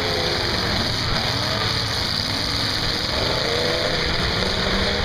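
Demolition derby pickup trucks' engines running and revving in a mud arena, the pitch rising and falling as they manoeuvre and ram.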